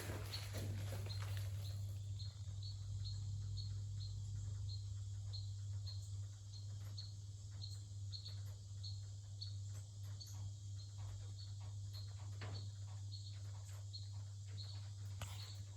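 An insect chirping steadily, a short high chirp about two to three times a second, over a constant low hum.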